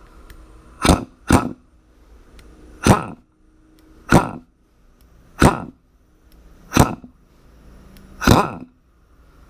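Air impact wrench triggered in short blips, seven brief bursts of the tool running on compressed air, about one every second and a half. This is a test run after a new throttle bushing was fitted to cure an air leak.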